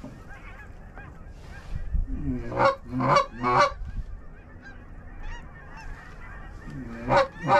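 Canada goose honks: a loud burst of three honks about two and a half seconds in and two more near the end, with fainter clucking honks between them.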